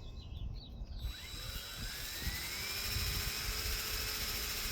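High-speed handheld power tool spinning up about a second in, its whine rising in pitch and then holding steady as it runs.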